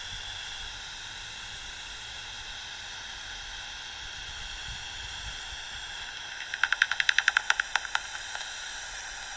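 Bat detector giving a steady hiss, then about two-thirds of the way in a quick run of a dozen or so sharp clicks, roughly ten a second, as it picks up a passing bat's echolocation calls.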